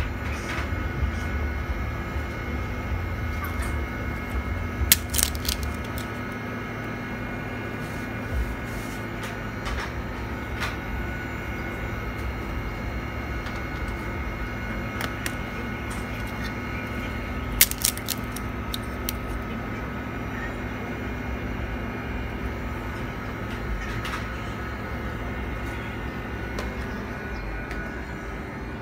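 Steady hum with several fixed tones from a phone-screen freezing separator's cooling unit running, with a couple of sharp clicks, about five seconds in and again a little past the middle.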